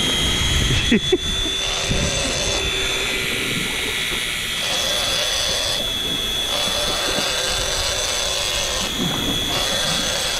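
A motor running steadily, with a thin high whine and a lower hum, over wind and sea noise.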